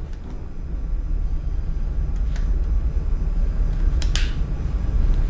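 Mode selector knob of an Oshima K3CN-26 rotary hammer drill clicking twice as it is turned between settings, over a steady low rumble.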